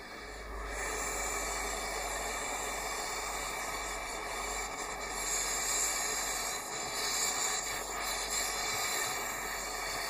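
Gas torch flame hissing steadily while it heats a copper refrigerator tube joint for brazing.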